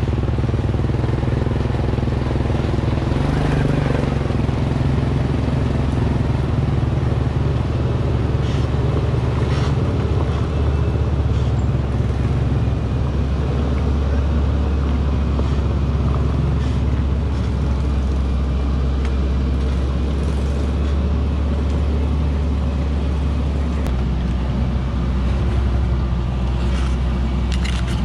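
Vehicle engines working steadily up a muddy forest track, a constant low drone from a truck heavily loaded with acacia logs and the vehicle following it. The engine note shifts lower about ten seconds in and changes again near the end, with a few brief knocks and rattles.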